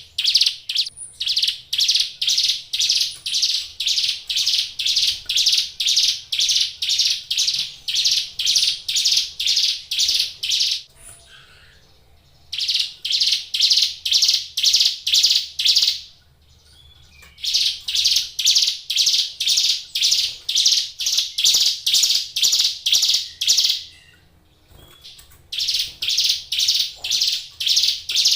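Ciblek gunung, a prinia, calling a loud, high, evenly repeated note about twice a second, in long bouts broken by three short pauses.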